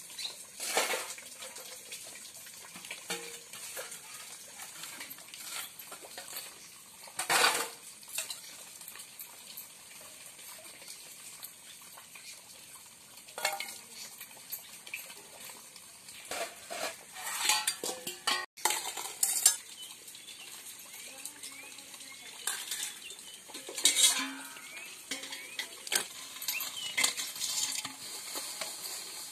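Stainless steel pots, bowls and plates being hand-washed: scattered clanks and scraping as they are scrubbed, knocked together and set down, the loudest clank about seven seconds in.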